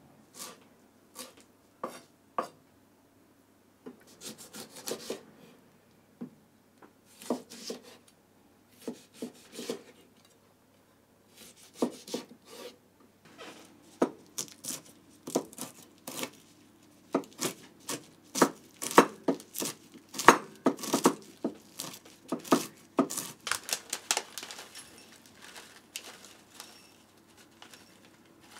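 Kitchen knife chopping on a wooden cutting board, through garlic chives and peanuts wrapped in a paper towel. A few scattered cuts at first, then a long run of quick chops in the middle, the loudest about two thirds of the way through, thinning out near the end.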